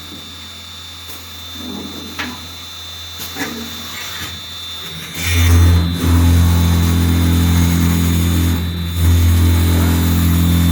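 Wood-drilling machine's motor starting up about halfway through and then running steadily with an even low hum, after a few light knocks over a quieter background hum.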